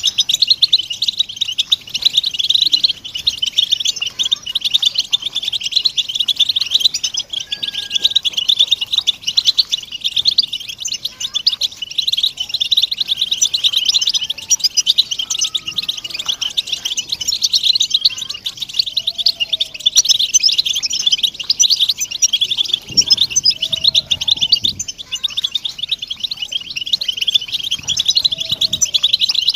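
A flock of European goldfinches calling together in a dense, unbroken chorus of rapid, high twittering chirps. These are the group contact and courtship calls used to stimulate male goldfinches to sing.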